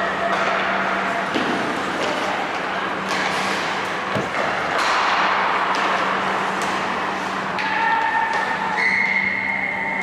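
Ice hockey rink sounds: skates scraping on the ice, indistinct players' voices and a few sharp knocks of sticks or puck, over a steady hum in a large echoing hall.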